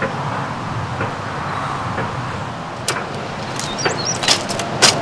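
Steady outdoor background noise. In the second half come several sharp clicks and knocks and a few short high squeaks as folding camp furniture is handled, the loudest click just before the end.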